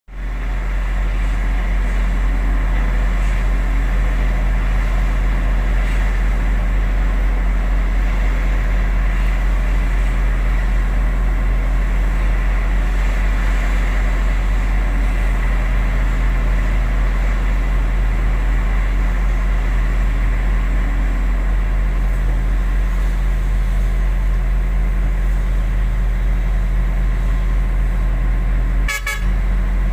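Heavy diesel engine running steadily with a deep, even drone, briefly broken near the end.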